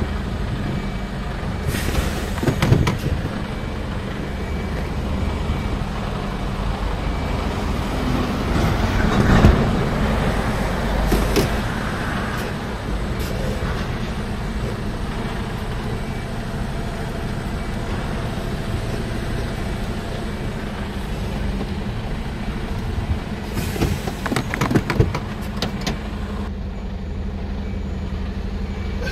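Truck engine running steadily. About nine seconds in there is a short rush of hiss, and there are brief clusters of clicks and knocks around two seconds in and again near the end.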